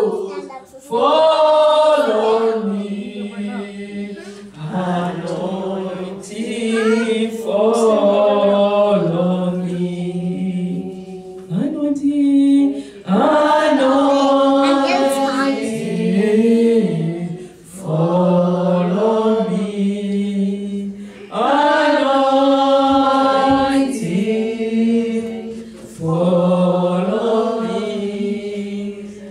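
Worship singing: a woman singing into a microphone in phrases of held notes with short breaks between them, with other voices singing along.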